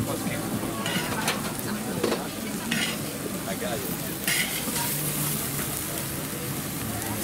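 Food sizzling as it cooks on a hot surface at a street-food stall, a steady hiss, with a few short scrapes and clinks of cooking utensils.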